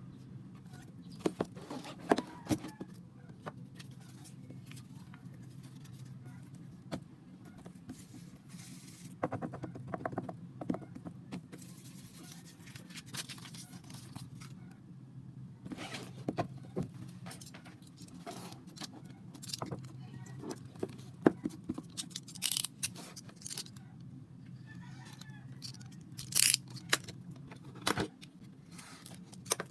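Hands handling K-pop album packaging during an unboxing: scattered crisp clicks, taps and short rustles of plastic wrap, cardboard and paper inserts, over a steady low hum.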